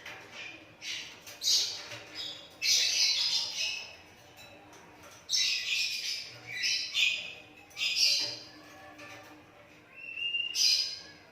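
Asian pied starling (jalak suren) singing in a string of harsh, chattering squawks mixed with short whistled notes, in bursts about a second long with brief pauses between them.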